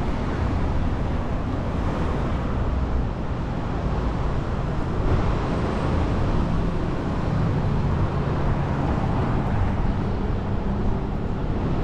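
Steady city street traffic noise heard from a moving bicycle, a deep continuous wash with no single event standing out.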